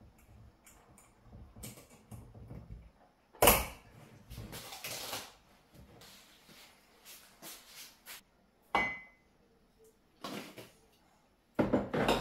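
Kitchen handling sounds: a glass jar and its lid knocked and scraped on the counter, with a sharp knock about three seconds in as the loudest sound and scattered clicks after it. Near the end, a wall cupboard door opens with a louder rattle.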